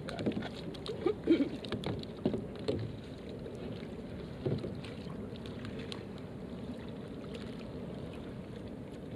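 Steady wind and water noise around a sit-on-top fishing kayak on calm water, with a handful of short knocks in the first three seconds and one more about four and a half seconds in.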